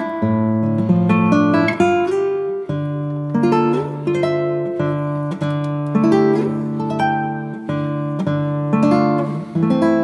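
Instrumental background music led by acoustic guitar, with plucked and strummed notes.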